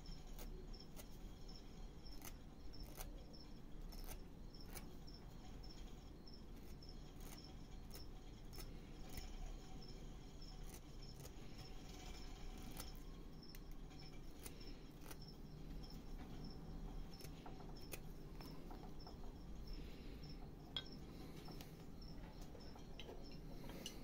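Faint cuts and scrapes of a small hand carving knife in a block of wood, heard as scattered soft clicks, over a steady high-pitched chirping in the background.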